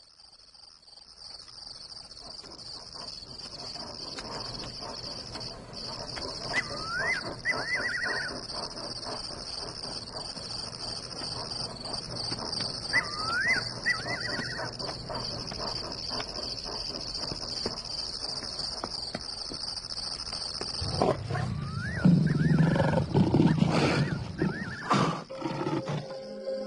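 Steady high-pitched chorus of crickets with a few short rising bird chirps, then about 21 seconds in a lion roars, low and loud, for some four seconds.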